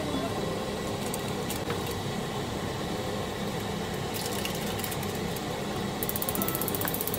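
Plastic seasoning sachet handled with a few crinkles and clicks, then torn open near the end with a quick, even ripping.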